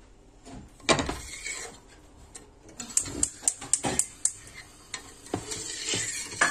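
Metal spoon stirring sugar and water with lemon slices in a stainless steel pot, clinking and scraping against the pot's bottom and sides to dissolve the sugar for syrup. A knock about a second in, then a quick run of sharp clinks, with liquid swishing near the end.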